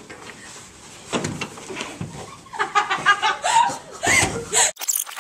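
Scuffling and a boy's loud, high-pitched cries in short bursts as he is grabbed and wrestled to the floor, cutting off abruptly near the end.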